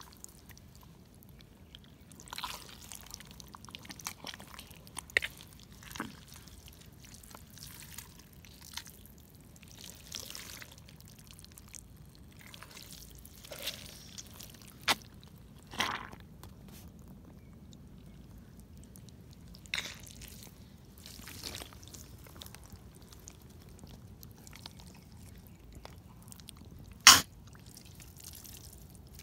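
Rubber wellington boots squelching in wet mud, in irregular short wet squelches with a sharp, louder one near the end.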